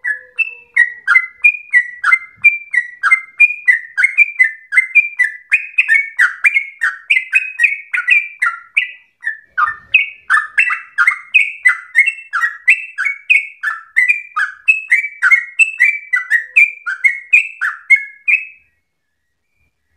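Yellow-vented bulbul (trucukan) singing a long, rapid run of short bubbly notes, about three a second, each sliding up or down in pitch; the song breaks off suddenly near the end.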